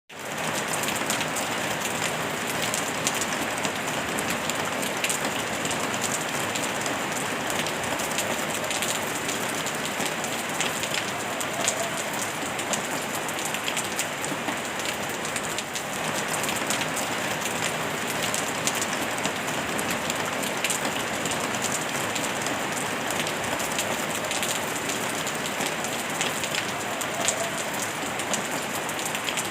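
Steady rain falling on a surface, an even hiss dotted with many small drop ticks, blended with pink noise. It fades in over the first half second and then holds steady.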